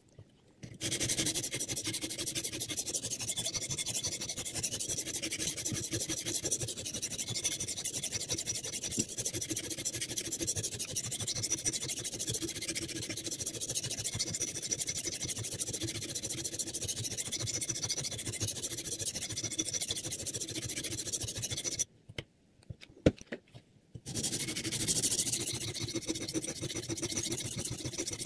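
A sharpening stone on a Hapstone R2 guided sharpener's arm is stroked rapidly back and forth along a clamped knife blade's edge, making a continuous gritty rasping. The stroking stops for about two seconds roughly three-quarters of the way through, with a single click in the gap, then starts again.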